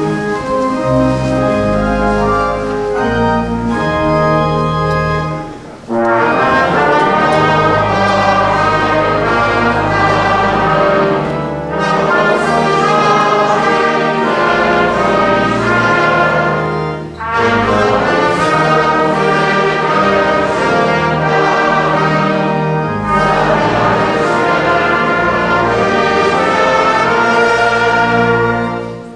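Brass band playing a slow hymn: sustained chords in five phrases, each about five to six seconds long, with a brief break between them.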